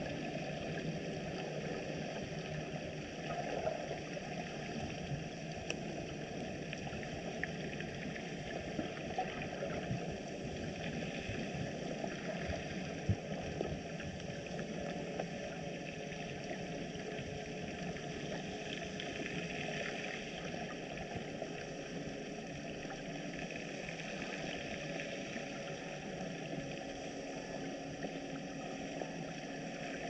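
Steady underwater hum and hiss, the sound of the sea heard through an underwater camera, with a few faint scattered clicks.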